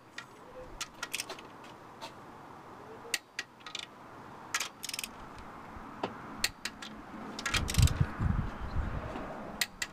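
Torque wrench on an extension clicking as cylinder head bolts are tightened, in sharp metallic clicks spaced about a second apart, a few in quick pairs. A loud low rumble comes about three quarters of the way through.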